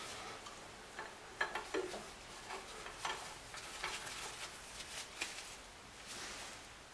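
Faint, irregular light metal clicks and rubbing as a ball-knob steel handle is screwed by gloved hands into its threaded hole in a steel part, a test fit of the handle.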